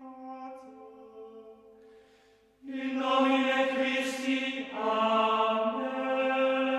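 Background music of long, held chant-like notes, quiet at first, then a fuller and louder sustained chord coming in about two and a half seconds in.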